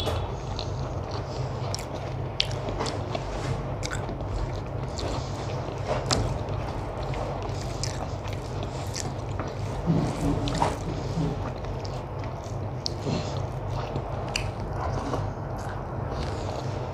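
Close-miked eating: chewing mouthfuls of rice and vegetable curry eaten by hand, with many small wet mouth clicks and smacks, over a steady low hum.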